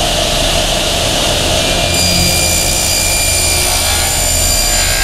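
Table saw running, its blade cutting through a wooden board pushed evenly across it.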